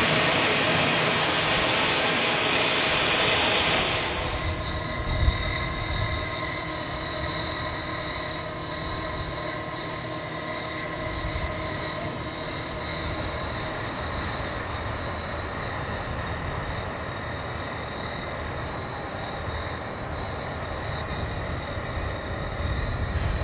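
C57 1 steam locomotive standing with steam hissing loudly for the first four seconds, then dropping to a softer, steady hiss and low rumble. A steady high whine runs underneath throughout.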